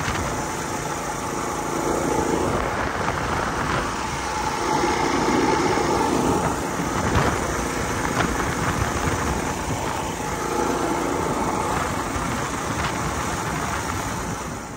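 Mini bike engine running under way through its muffler, its note rising and falling a few times as the throttle changes.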